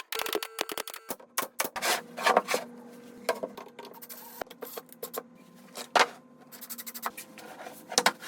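Irregular clicks and knocks of wooden pieces being handled and fitted, over a faint steady hum.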